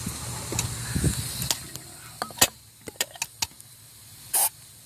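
Clicks and knocks of hands working around the engine's carburetor, with a short hiss of aerosol starting fluid being squirted in near the end. The engine is not running.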